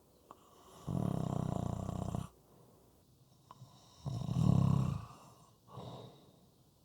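Snoring: two long, loud snores a few seconds apart, the second followed by a shorter, weaker one.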